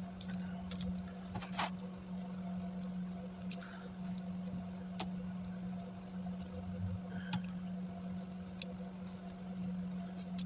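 Scattered light clicks and taps from handling small laptop parts, over a steady low hum.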